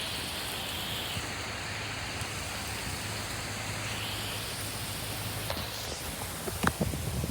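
Steady hiss of rain falling in a storm.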